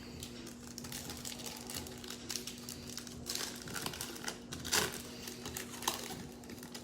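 Crinkling of a plastic-foil trading-card pack wrapper being opened and handled, a run of irregular crackles with two louder crackles near the end.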